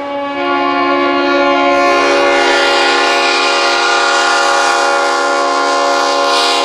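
Diesel locomotive air horns blowing a loud, steady chord of several notes. The chord dips right at the start, then fills out within the first two seconds and holds without a break.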